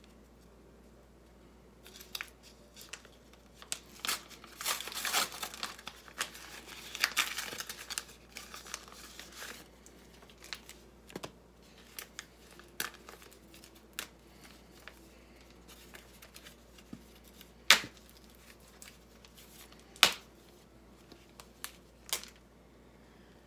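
A paper shipping envelope is torn open and its contents handled. There is a stretch of tearing and crinkling paper from about four to nine seconds in, then scattered rustles of paper and plastic sleeves, with two sharp snaps a couple of seconds apart near the end.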